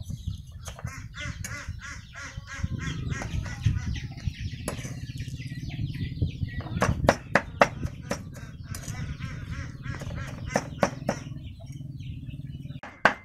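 Steel cleaver chopping a paste of ground pork and fish on a wooden chopping block, in irregular strokes with short fast runs. Poultry cluck in the background.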